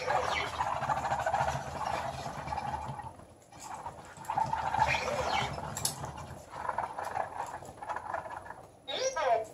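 Spin Master BB-8 toy droid making its electronic warbling chirps in short bouts, with a quick falling chirp near the end.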